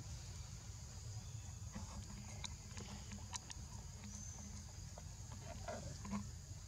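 Outdoor ambience: a steady high-pitched insect buzz over a low rumble. Faint scattered clicks and rustles start about two seconds in, and a few short faint sounds come near the end.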